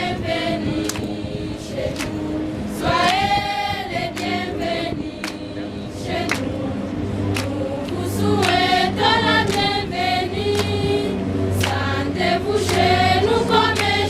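A group of students singing together as a choir, in phrases with pauses between them, with sharp clicks scattered through the singing and a steady low sung tone joining about halfway through.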